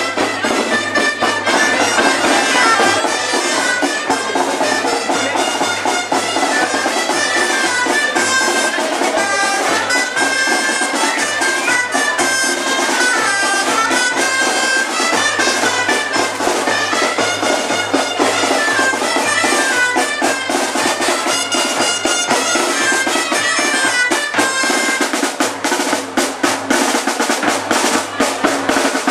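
Traditional Aragonese street music: a woodwind pipe plays a winding melody over a steadily beating drum.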